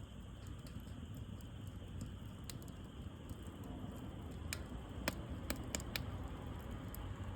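Wood fire burning with a low steady rumble, and crackling pops from the burning wood: one at about two and a half seconds, then a quick run of about five in the second half.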